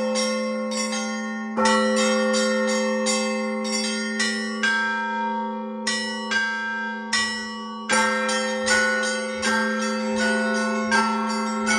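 Russian Orthodox church bells ringing: a deep bell hums throughout and is struck again a few times, under quick strikes of smaller, higher bells, about three a second, in a repeating pattern.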